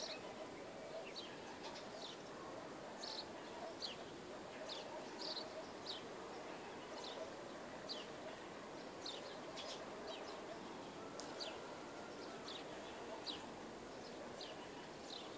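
Small birds chirping faintly, short high chirps repeated every second or so, over a steady faint background hum.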